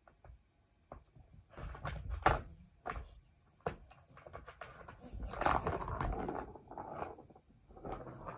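Plastic ball-track cat toy rattling as a cat bats a light-up ball around it: a few sharp clicks and knocks, then longer stretches of rolling and clattering plastic.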